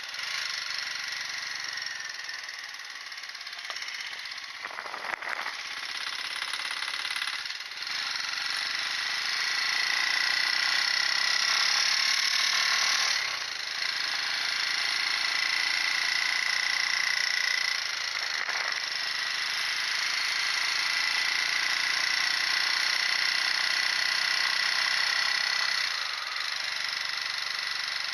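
Motorcycle engine running under way, its pitch rising and falling, over a steady rushing noise, with a few brief dips in level.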